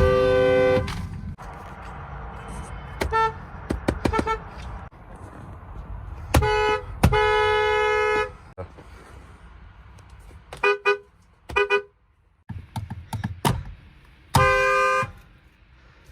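Ford car horns honking, a run of short toots and blasts of about a second. Each honk is a two-note dual-tone horn sound.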